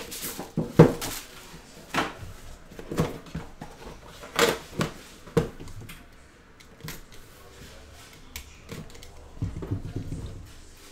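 Plastic shrink wrap crinkling as a sealed trading-card box is unwrapped, then the cardboard box and its case are handled, with a run of irregular sharp clicks and knocks.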